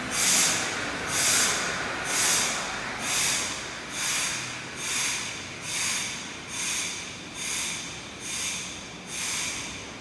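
Water sloshing and splashing in a laboratory wave flume as generated waves pass: a regular surge of hissing water noise about once a second, eleven in all, growing slightly weaker toward the end.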